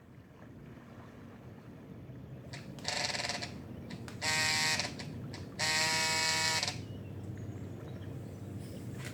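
An electric buzzing sounds three times, each buzz a little longer than the one before. A steady low hum fades in underneath.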